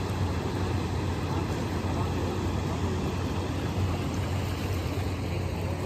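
Steady low rush of a fast-flowing river, an even rumble with no breaks.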